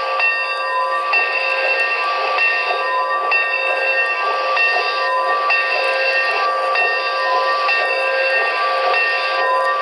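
Sound decoder of a Broadway Limited HO-scale Santa Fe 4-6-4 Northern 3751 model locomotive playing recorded steam-locomotive running sounds through its small onboard speakers: a steady steam hiss with several steady ringing tones layered over it, and no low end.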